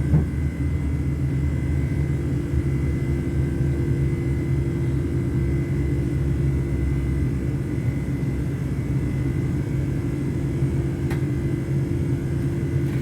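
Steady low rumble and hum inside a Class 730 electric multiple unit, with a faint steady high whine from its equipment and a couple of small clicks.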